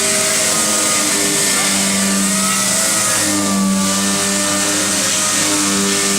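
Power sander running steadily against sheet metal. It gives a continuous hiss and a motor hum whose pitch wavers slightly as it works.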